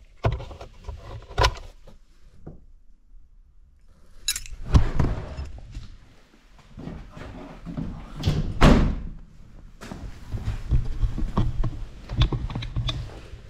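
Irregular knocks, thunks and clicks of workshop handling, with two louder thumps about five and nine seconds in.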